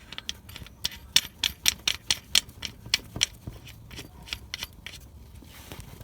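A ratchet wrench clicking in quick, uneven runs of several clicks a second as a Torx T70 drain plug is screwed back into a differential. The clicks thin out in the second half.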